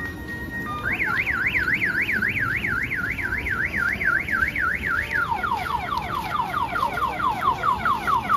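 Electronic siren sound effect from a children's battery-powered ride-on toy car. It starts about a second in as a fast rising-and-falling warble, about four cycles a second, and past the middle switches to quick repeated falling sweeps, also about four a second.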